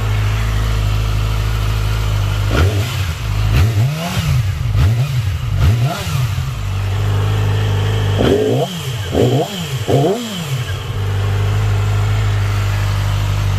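2008 Yamaha R6's 600cc inline-four on its stock exhaust, idling steadily and blipped with quick throttle revs that rise and drop straight back to idle: a run of four blips in the first half, then three sharp blips in quick succession a little after the middle, then steady idle again.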